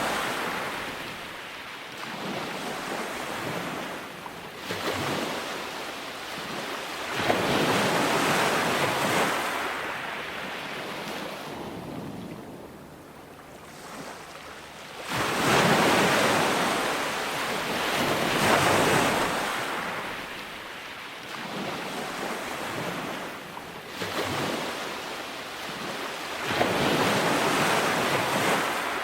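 Ocean waves breaking on a beach, each wave swelling into a rush of surf and fading back, several in turn with a quieter lull between them.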